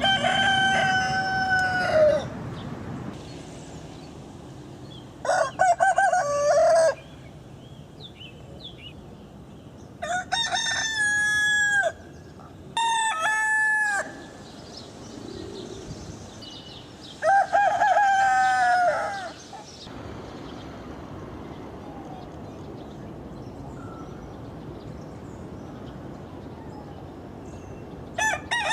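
Rooster crowing: about five separate cock-a-doodle-doo calls of one to two seconds each, a few seconds apart, each ending on a falling note. After a longer pause in the latter part, another crow begins right at the end.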